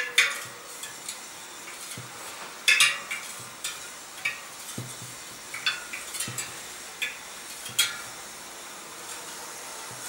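Spokes of a newly built DT Swiss wheel being squeezed and flexed by hand, giving about a dozen irregular sharp metallic pings and clinks as the spokes bed in. The pings thin out near the end.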